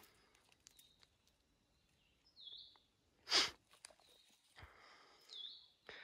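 Faint forest ambience with a wild bird giving a short high call twice, each a quick dip and rise in pitch, about three seconds apart. Between the two calls comes one brief, louder sound of a different kind.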